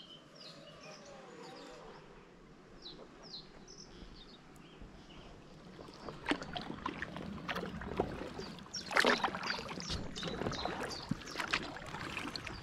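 Kayak paddle strokes in calm water: quiet at first with small birds chirping, then from about halfway through, irregular splashes, drips and light knocks of the paddle blades getting louder.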